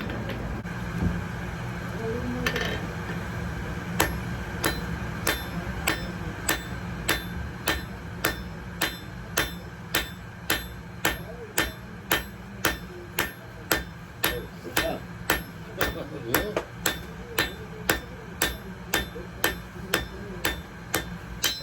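Blacksmith's hammer striking metal on an anvil in a steady rhythm, about two to three blows a second, each with a short metallic ring. The blows grow closer and louder partway through. A steady low hum runs underneath.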